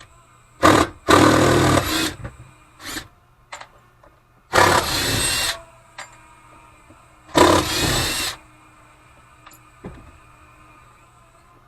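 Power drill/driver driving screws into a workbench, running in five short bursts of up to about a second each.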